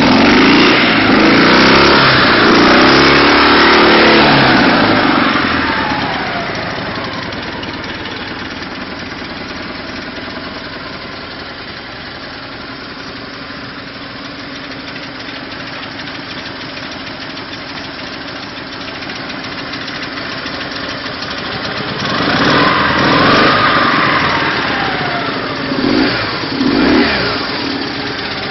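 Air-cooled flat-twin boxer motorcycle engine revved for the first few seconds, then dropping back to a steady idle. About 22 seconds in it is revved again, rising and falling, followed by two short throttle blips near the end.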